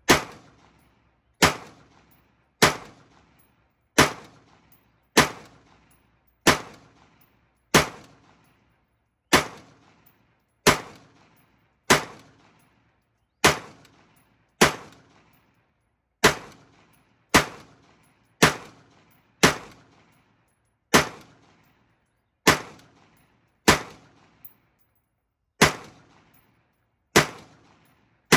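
Centurion Arms Recce rifle, a semi-automatic AR-15 in 5.56 mm, firing Mark 262 ammunition shot by shot. About twenty sharp reports come at a steady pace of roughly one every second and a half, each with a short echo tail.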